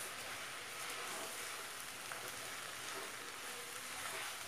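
Stir-fried vegetable hakka noodles sizzling quietly and steadily in a non-stick pan as they are stirred with a wooden spatula.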